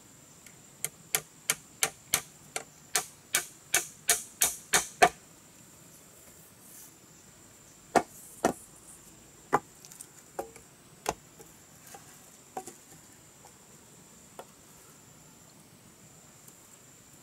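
Hammer nailing a bamboo pole to a bamboo frame: a quick run of about a dozen sharp blows that come closer together, then, after a pause of about three seconds, a handful of separate blows that weaken to light taps.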